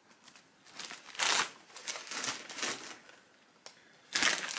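Plastic snack bags crinkling and rustling as they are handled, in irregular bursts, with a short lull and a single click before louder crinkling starts near the end.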